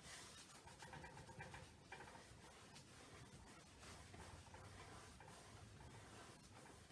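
Faint, scratchy strokes of a paintbrush lightly working acrylic paint over canvas.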